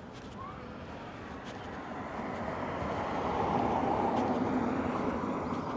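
A passing vehicle: a steady rushing noise that swells to its loudest about four seconds in and then begins to fade.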